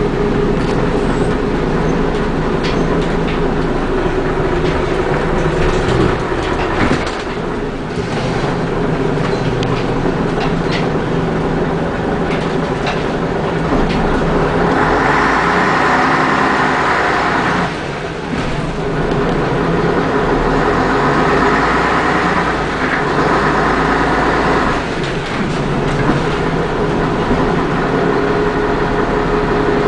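Scania bus diesel engine and drivetrain heard from inside the passenger saloon while under way, with light rattles in the first half. A brighter whine builds during three spells of pulling, with brief dips in the note between them.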